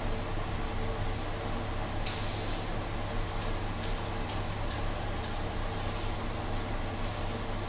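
Steady low hum of the pot still's agitator motor running during preheating, with several short bursts of hiss from about two seconds in.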